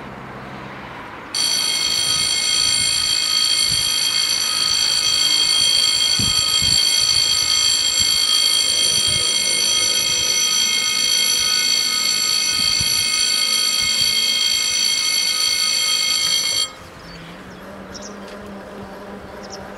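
Electronic warning bells of a French level crossing ringing as the crossing closes for an approaching train: one continuous, shrill electronic tone that starts about a second in and cuts off suddenly near the end.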